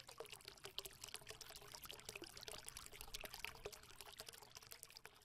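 Faint, irregular crackle of many small clicks and ticks, like trickling liquid, a little louder in the middle and fading near the end.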